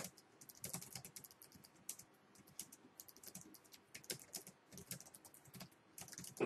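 Typing on a computer keyboard: a fast, irregular run of quiet key clicks.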